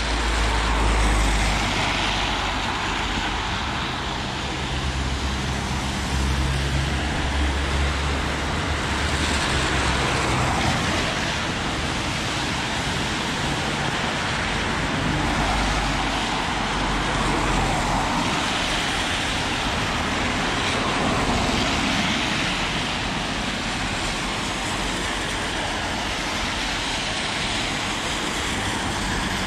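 Cars driving past on a rain-soaked road, their tyres hissing on the wet surface, swelling and fading several times over steady rainfall, with a low engine rumble during the first third.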